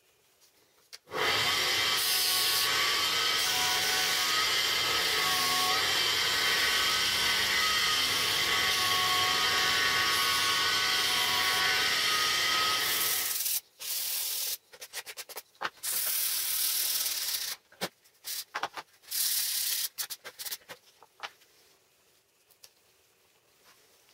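Disc sander grinding a small metal piece held against its abrasive disc. The grinding starts abruptly about a second in and runs steadily for some twelve seconds, then comes in short, broken bursts before stopping near the end.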